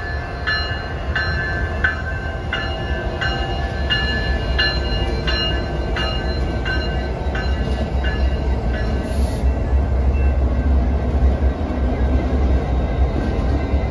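EMD GP60-family diesel locomotives rumbling steadily past at close range, growing louder in the second half. A bell rings about one and a half times a second and fades out about eight seconds in.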